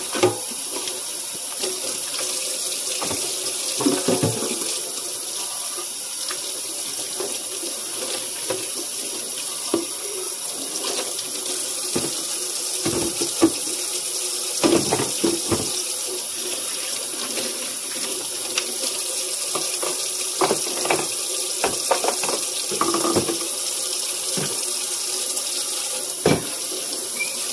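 Kitchen faucet running steadily into a stainless sink while dishes are rinsed by hand, with scattered knocks and clatters of dishes being handled under the stream.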